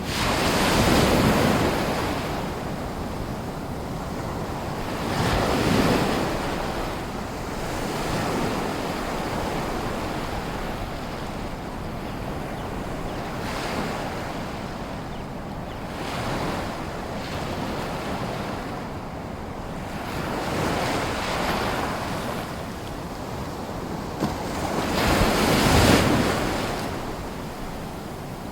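Small sea waves in a lagoon washing in and breaking on the shore, a steady wash of water that swells every few seconds, loudest about a second in, around five seconds in and near the end.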